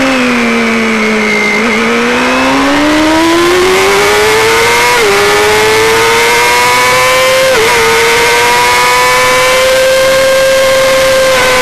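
1990 Honda CBR250RR's 250 cc inline-four engine at racing revs: the high-pitched note drops as the bike slows into a corner, then climbs as it drives out. Two quick dips in pitch a few seconds apart mark upshifts, and the note then holds fairly level, over a steady rush of wind.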